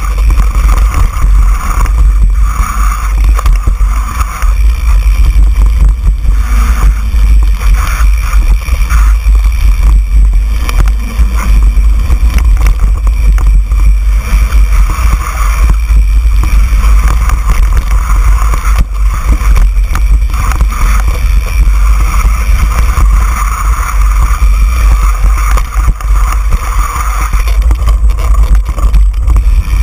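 Mountain bike descending a bumpy dirt trail at speed: a loud, steady rumble of wind buffeting the bike-mounted camera's microphone. The bike and tyres rattle and knock over the bumps.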